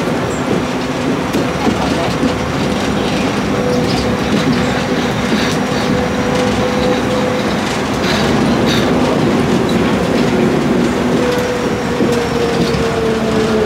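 Interior running noise of the MIA Mover, a rubber-tyred automated people-mover train, travelling along its elevated guideway: a steady rumble with a constant drive hum. Near the end, one tone slides slowly down in pitch.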